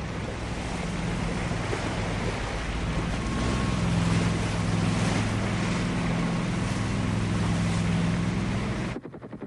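US Navy patrol boat running at speed: a steady engine drone under the rush of spray, water and wind. It cuts off suddenly near the end.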